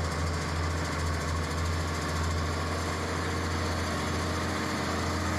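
Bulldozer's diesel engine running steadily, a low, even drone with a slight throb.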